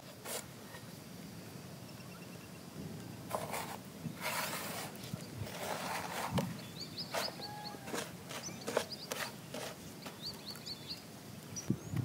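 Hands rustling and scraping through dry breadcrumbs in a metal tray in short bursts as batter-coated mushrooms are rolled in the crumbs. Small birds chirp a few times in the background.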